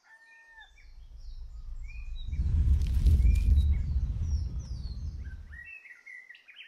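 Birds chirping and tweeting, joined by a deep rumble that swells from about half a second in, peaks around three seconds and cuts off abruptly near six seconds: the sound of a TV station's closing ident.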